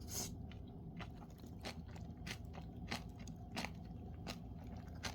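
Close-up eating: a person biting and chewing a mouthful of jjolmyeon noodles mixed with raw vegetables, with a crisp crunch about every two-thirds of a second.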